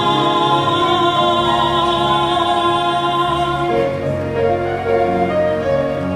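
Show-tune solo with orchestral accompaniment: a long held sung note, with a slight waver, that ends about four seconds in, leaving the accompaniment playing on alone.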